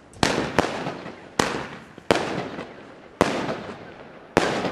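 Weco 'Big Crackles' crackling firework going off: six sharp bangs at uneven intervals, each trailing into a dense spray of crackling that fades over about a second.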